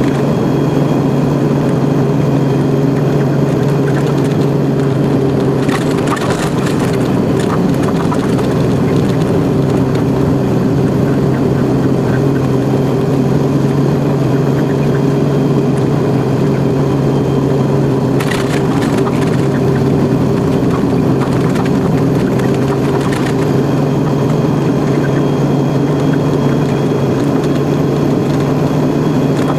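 Truck engine running at a steady drone, heard from inside the cab while driving. Brief crackling bursts come in twice, about six seconds in and again past the middle.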